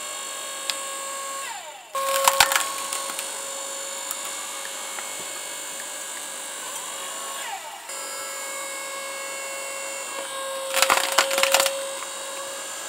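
Timco LS6T 52 log splitter's motor humming steadily as the ram drives logs onto the wedge. The wood cracks and splinters loudly twice, about two seconds in and again near eleven seconds, as logs split apart.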